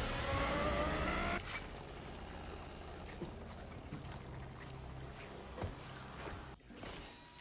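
An engine revving up, its pitch rising, then cutting off abruptly about a second and a half in. A quieter low rumble with a few faint knocks follows.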